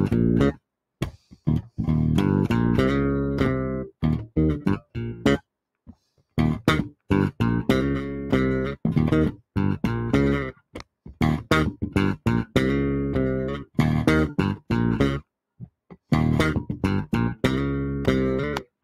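Electric bass guitar playing a bass line on its own, in phrases of short plucked notes with a few brief pauses, one about six seconds in and another about fifteen seconds in.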